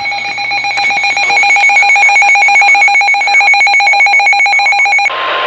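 A weather alert radio's built-in alarm beeping rapidly and steadily, signalling an incoming warning. Just before the end it gives way to the steady single-pitch NOAA Weather Radio warning alarm tone.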